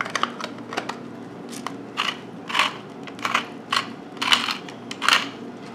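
Hand-twisted pepper mill grinding peppercorns: a series of short gritty crunches, roughly two a second.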